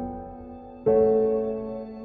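Slow background piano music: a new chord is struck about a second in and left to fade.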